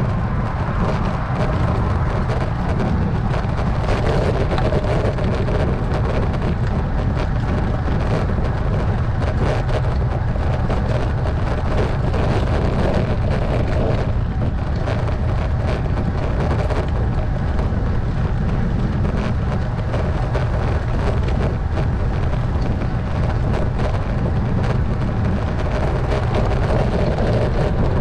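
Steady low wind rumble buffeting the microphone of a bike-mounted camera while cycling, with road noise under it.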